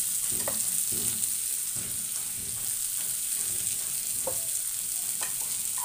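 Freshly added chopped onions sizzling in hot oil in a frying pan: a steady hiss with an occasional faint pop.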